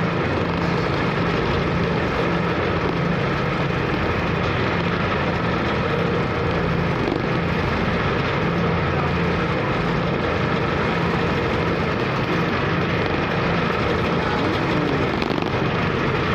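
Large diesel engine of a car ferry running steadily: an unchanging drone with a low hum.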